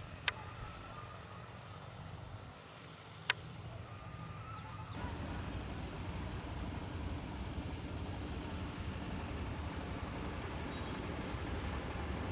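Rural outdoor ambience: a steady low rumble that grows louder about five seconds in, with insects calling high above it, first as a thin steady whine and then as rapid pulsed chirping. Two sharp clicks come in the first few seconds.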